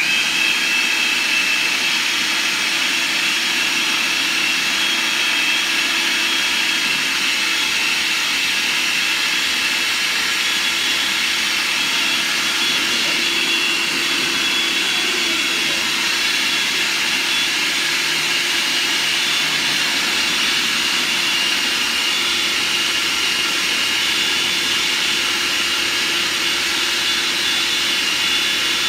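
Electric food processor switched on and running steadily, puréeing chickpeas into hummus; a steady motor whine with a high tone over it.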